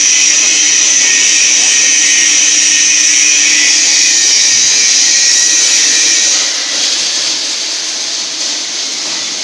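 Small electric welding positioner's motor and gear drive running: a steady high whine and hiss over a low hum. The hum fades and the level drops slightly about six and a half seconds in.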